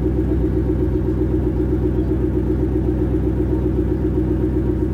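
An engine running steadily at idle: a constant low drone with a slight regular warble in its hum.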